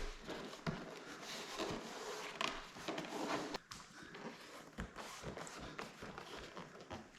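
Irregular light knocks, taps and rustling from hands working a glued vinyl cover into place on a boat console.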